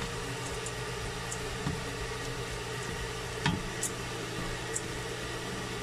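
Light steady sizzle of washed red lentils, rice and bulgur toasting in butter in a stainless-steel pot, over a constant hum. A wooden spoon scrapes the pot with a couple of faint ticks a little past halfway.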